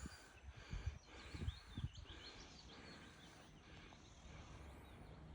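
Faint outdoor ambience with a small bird singing quick, warbling notes in the first few seconds, over a steady hiss; a few low thumps come in the first two seconds.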